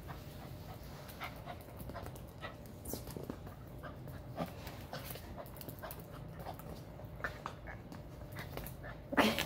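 Dachshund panting while it plays, with many short faint sounds and one louder short sound near the end.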